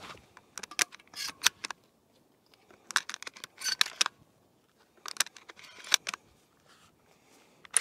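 12-gauge buckshot shells being pushed one by one into the tube magazine of a Remington V3 TAC-13 shotgun: three bursts of metallic clicks and plastic scrapes, about a second or two apart, with a louder sharp clack right at the end.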